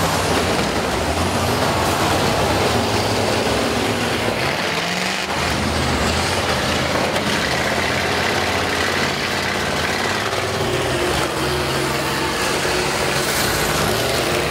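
Engines of several school buses running and revving, the pitch rising and falling now and then.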